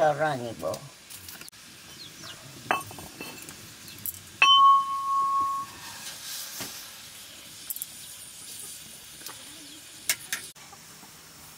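Steel utensils clinking against a metal cooking pot over a wood fire: a few light clicks, and one sharp clink about four and a half seconds in that rings on for about a second, as the steel lid and ladle meet the pot.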